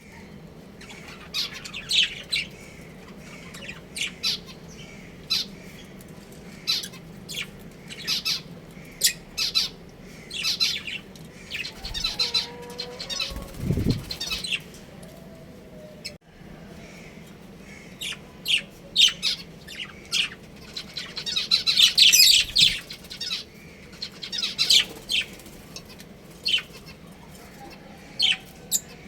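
A group of budgies chirping and squawking in short, sharp calls throughout, busiest about 12 and 22 seconds in. A brief low sound comes about 14 seconds in.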